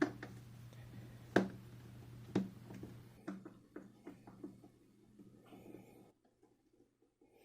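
Small Phillips screwdriver unscrewing screws from an air fryer's plastic display housing: a few sharp clicks, then a run of light ticks. A steady low hum runs underneath and stops about six seconds in.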